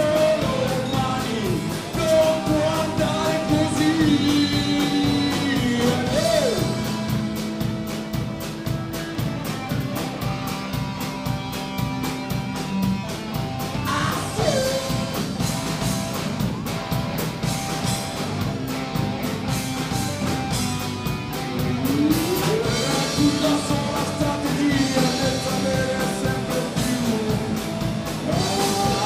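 Rock band playing live: electric guitars, bass guitar and drum kit over a steady beat, with a lead line that bends up and down in pitch.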